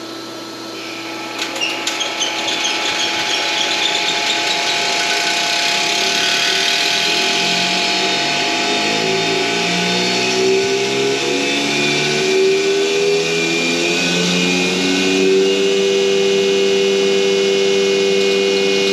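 Becker vacuum pump switched on and spinning up: a motor hum that grows louder over the first few seconds, its pitch climbing slowly for about fifteen seconds before settling into a steady run, with a faint high whine above it.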